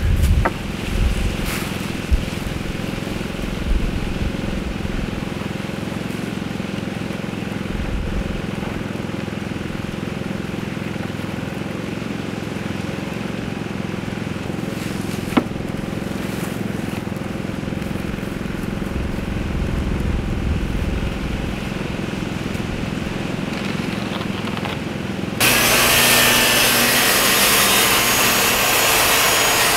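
A steady mechanical hum with a few sharp knocks. Near the end it switches abruptly to a loud power saw cutting wood.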